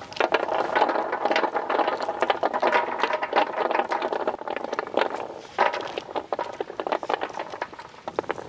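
Pomegranates being pulled apart by hand and their seeds prised out: a dense, continuous crackling of rind and seed clusters snapping, with seeds falling onto steel plates.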